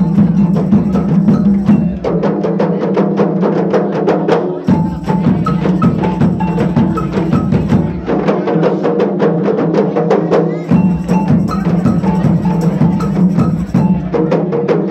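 Music with rapid, busy percussion strikes over a steady low tone and a short repeating melody.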